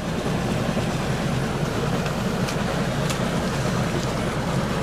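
An engine running steadily at an even speed, a constant low rumble with a few faint clicks over it.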